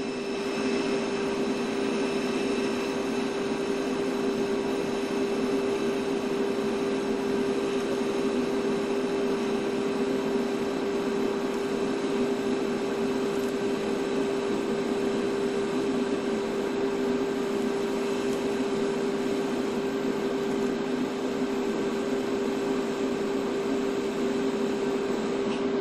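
TIG welder arc burning steadily while a weld bead is run on a steel exhaust tube: an even hiss over a constant hum. The arc cuts off sharply at the end.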